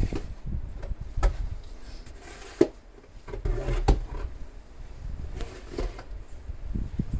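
Snow shovel working snow: irregular knocks and thuds with short scraping swishes between them, about half a dozen strikes at uneven spacing.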